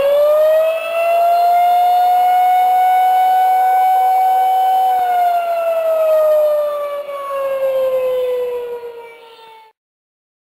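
Civil-defense air-raid siren wailing: its pitch winds up over the first second or so, holds steady, then winds slowly down over about five seconds and cuts off shortly before the end.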